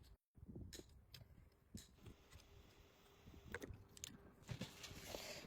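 Faint scattered clicks and light handling noises, with a short soft hiss near the end.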